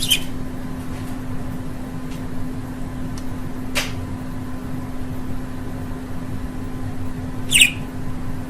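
A steady machine-like hum with low rumbling noise underneath, broken by a sharp click about four seconds in and a short high budgie chirp near the end.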